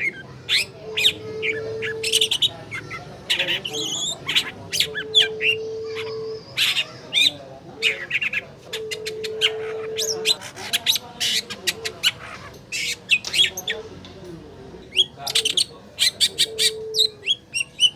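Long-tailed shrike (cendet) singing a fast, harsh, varied string of sharp chattering and squawking notes, used as a lure song to get a silent bird to sing. A low steady tone comes and goes four times behind it.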